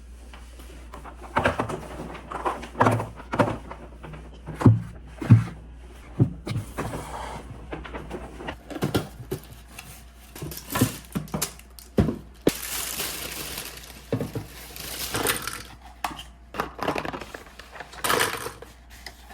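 Irregular knocks and clatter of hard objects being handled, with a few longer hissing rushes about two-thirds of the way in and near the end.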